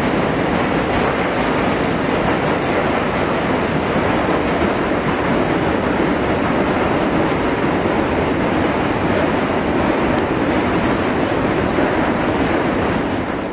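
Steady, even rumbling noise with no speech or music, unchanging in loudness throughout.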